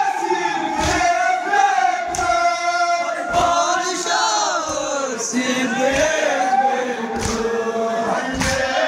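A crowd of men chanting a Shia noha lament in unison, with dull thuds about every second and a quarter from their hands beating their chests together in matam.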